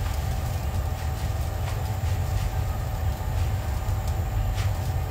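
Steady low rumble and hum of commercial kitchen machinery, with a few faint ticks.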